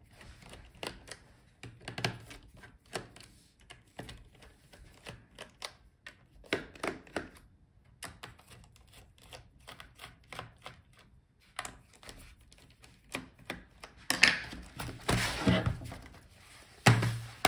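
Small clicks and ticks of a precision screwdriver working the bottom-case screws of a Lenovo ThinkPad E14 Gen 2 laptop, with light taps on the plastic case. About fourteen seconds in, a louder stretch of rubbing and scraping on the case.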